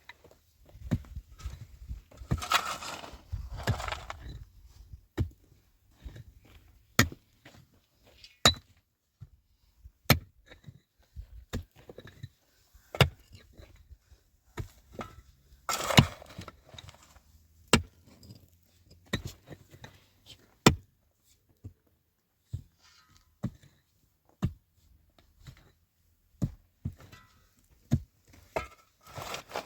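Repeated sharp knocks, one at a time, about every second or two, with a longer rustling, scraping noise about two to four seconds in and again about halfway.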